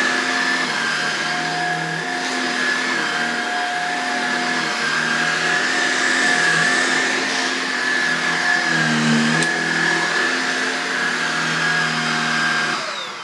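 Shark Rotator Lift-Away NV340 bagless upright vacuum cleaner running on carpet: a steady motor noise with a high whine, its lower hum shifting every second or two as it is pushed back and forth. Near the end it is switched off and the whine starts to fall as the motor winds down.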